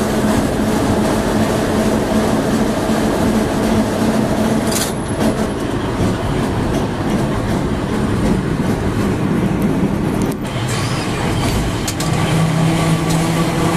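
Historic tram running along street track, heard from on board: a steady rumble and rattle of the wheels on the rails with a constant motor hum that shifts to a lower pitch near the end.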